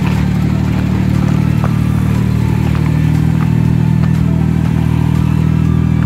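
An engine running at a steady speed, a loud, even low hum.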